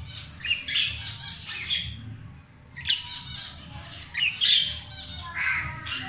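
Budgerigars calling in short harsh squawks and chirps, several calls overlapping, with louder bursts spread through.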